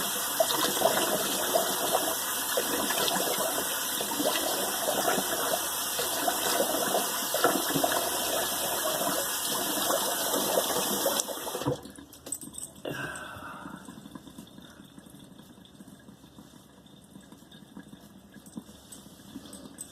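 Cold water running from a sink tap, with splashing as a face is rinsed; the tap is shut off about eleven and a half seconds in, leaving only faint small sounds.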